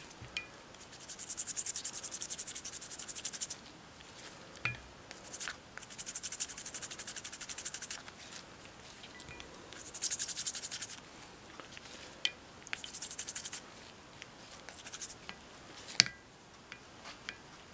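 Toothbrush bristles scrubbing a wet wooden handle scale in quick back-and-forth strokes, in about five short spells with pauses between, and one sharp click near the end.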